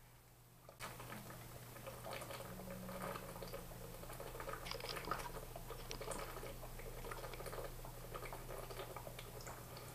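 Someone drinking from a small clear bottle: a faint, irregular crackle of small liquid sounds and ticks, starting about a second in.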